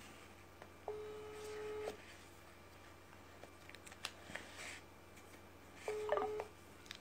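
Two steady electronic beeps from a phone, the first about a second long and the second about half a second long, with light clicks and rustling from a cigarette pack being handled between them.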